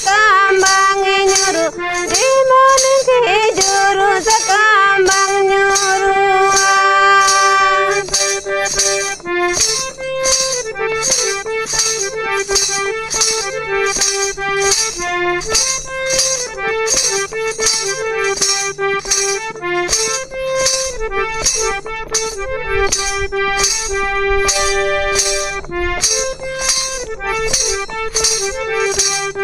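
Harmonium playing a melody of held reedy notes over a steady shaker-and-tambourine beat, with a voice singing over the first several seconds.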